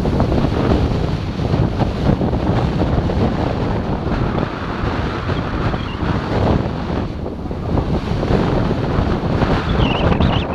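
Wind rushing over the microphone of a camera skiing downhill, mixed with the hiss and scrape of skis sliding on packed snow, swelling and easing with each turn.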